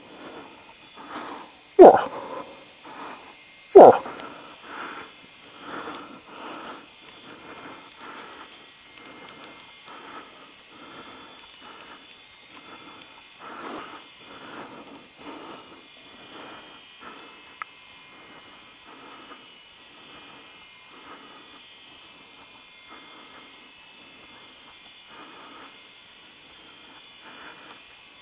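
Two rifle shots about two seconds apart, a couple of seconds in. They are followed by a steady run of footsteps swishing through tall dry grass, about two a second, fading toward the end.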